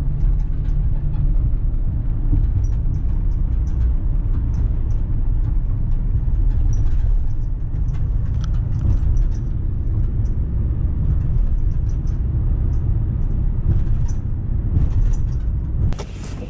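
A vehicle driving: a steady low rumble of engine and road noise, with scattered light ticks over it. The rumble drops in level near the end.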